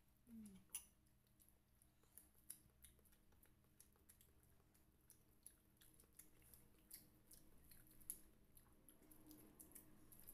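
Faint eating sounds over near silence: many small scattered crunches and clicks of fried chicken's crispy breading being torn apart by hand and chewed.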